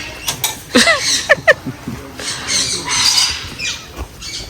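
Parrots calling: a few short, quickly bending squeaky calls about a second in, then a longer harsh screech.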